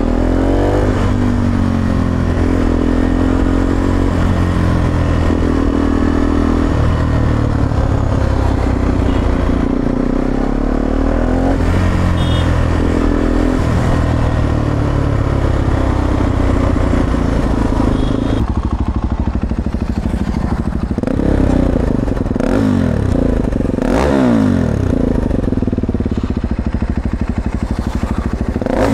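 KTM Duke 390's single-cylinder engine running through an Akrapovič long-can slip-on exhaust fitted with a dB killer, rising in pitch several times as the bike accelerates on the road. The exhaust note is kept quiet by the dB killer.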